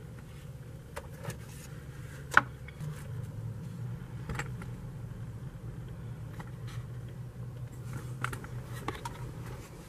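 A low steady hum with a few light clicks and taps, the sharpest about two and a half seconds in.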